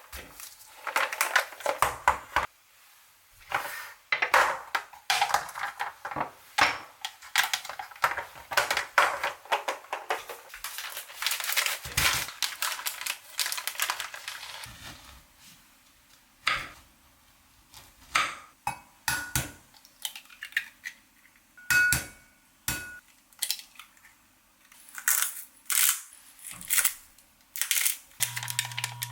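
Kitchen work sounds: dishes and utensils clinking and knocking, with rustling and crinkling, busy for about the first half and then scattered knocks.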